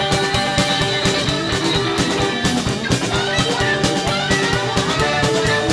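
Live band playing an instrumental stretch of the song without singing: guitar over a steady drum beat.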